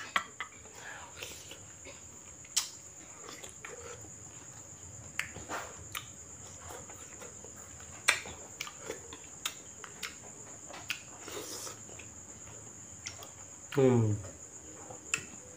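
Steady high-pitched chirring of crickets, with scattered clicks and taps of a utensil against a plastic plate as mango is cut. A brief voiced sound comes near the end.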